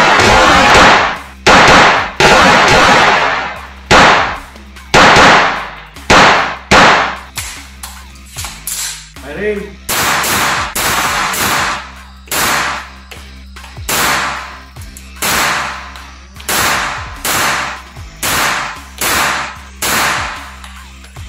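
Battlearms Xiphos 9 mm pistol-calibre carbine fired in rapid succession: a long string of about thirty sharp shots at uneven spacing, one to three a second, each ringing off the walls of an indoor range.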